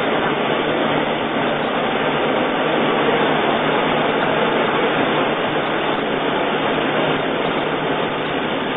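Corn peeling and grinding mill running steadily, a loud, even mechanical din with a faint low hum beneath it.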